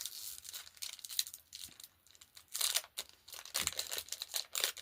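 Crinkling and rustling of Pokémon booster-pack foil wrappers and cards being handled, in irregular bouts that are strongest in the second half.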